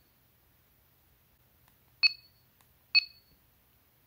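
70mai Smart Dash Cam Pro giving two short key beeps about a second apart as its menu buttons are pressed, the first about two seconds in. Each beep sounds two pitches at once and fades quickly.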